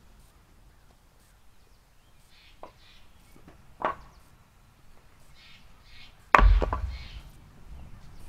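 Wooden blocks knocking together as they are gathered up: a light knock and a sharper one between about two and a half and four seconds in, then a louder clatter of several quick knocks at about six seconds.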